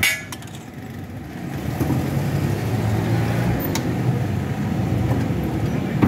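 A metal spatula clanks once on the iron griddle, then a nearby motor vehicle engine runs with a steady low hum that grows slightly louder.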